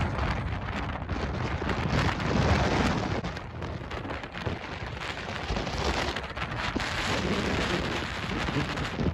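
Strong wind blasting across the microphone in gusts, with crackling and rubbing from fingers fumbling the camera as it is nearly dropped.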